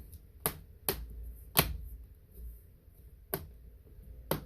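Plastic bottom cover of a laptop being pressed down, its clips snapping into place with five sharp, separate clicks.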